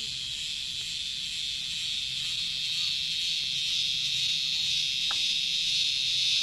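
A cicada on a tree trunk calling: a loud, continuous high-pitched buzz, the 'kriuk kriuk' noise, growing steadily louder.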